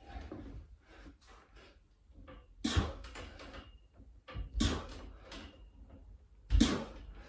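A man doing three pull-ups on a freestanding pull-up station: with each rep comes a short burst of hard breath and a low thump, three times about two seconds apart.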